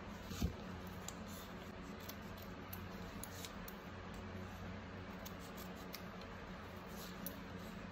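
Small scissors snipping adhesive tape: faint, irregular snips spread through, with a single soft knock about half a second in, over a steady low hum.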